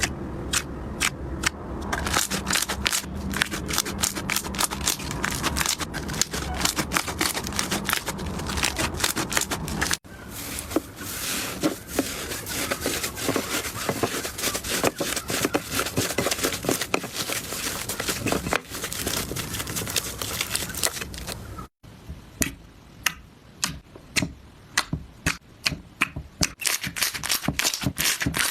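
Slime being squeezed and poked by hand, making a dense run of crackling clicks and pops that stop abruptly a few times and start again.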